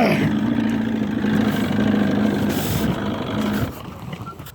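Motorboat engine running steadily with water and wind noise, then dropping away sharply about three-quarters of the way through as the engine is throttled back.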